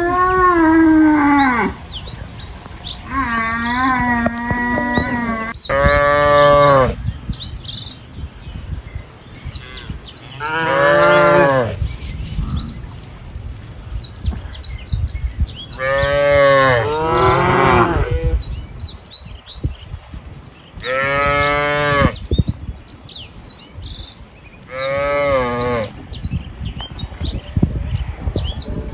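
Cattle mooing repeatedly: about eight drawn-out calls, each around a second long and rising then falling in pitch, a few seconds apart. Small birds chirp in the background.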